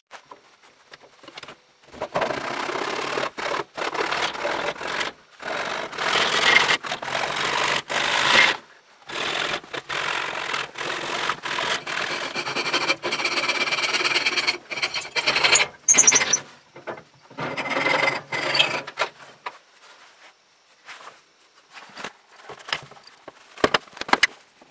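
Wooden hammer handle clamped in a vise being shaped by abrading the wood, a rough rubbing in long passes with short breaks. A brief high squeal comes about two-thirds of the way through.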